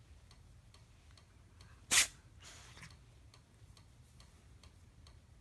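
Faint, even ticking repeating several times a second over a low hum. About two seconds in comes one sharp, loud click followed by a brief rustle.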